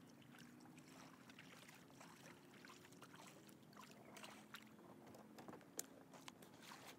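Faint paddle strokes and drips from a kayak paddle dipping into calm water as the kayak comes in toward the bank, heard as scattered soft splashes and ticks that get more frequent in the second half, over a faint low hum.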